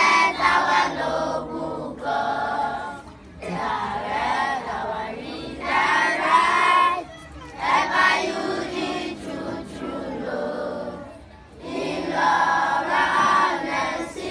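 A large group of schoolchildren singing a devotional song together in unison, in phrases a few seconds long with short breaks between them.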